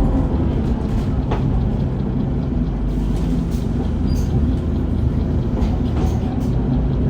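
Mercedes-Benz Citaro O530 CNG city bus with a ZF Ecomat automatic gearbox running at a steady engine speed, with an occasional light click or rattle.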